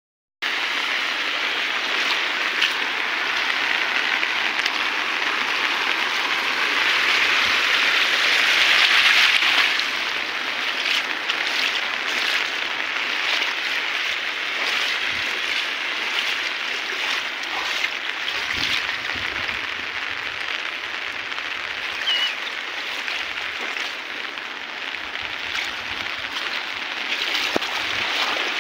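Muddy rainwater runoff rushing and splashing over a low earthen ledge and along a flooded channel, a steady rushing noise that is loudest about eight to ten seconds in.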